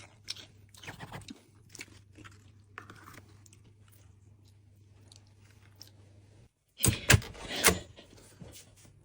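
Close-up chewing and crunching of a crisp pastry, faint small crunches over a low hum. About seven seconds in there is a short burst of loud knocks and noise, the loudest part.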